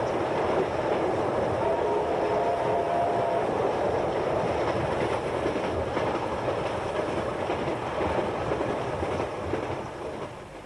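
Train hauled by a 36 class steam locomotive running: a steady rumble with the clatter of wheels over the rails, dying away near the end.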